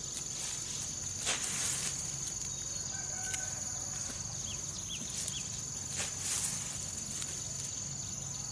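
Steady high-pitched drone of insects, with rustling of leafy peanut plants being handled, louder about a second in and again about six seconds in. A few faint short chirps come through in the middle.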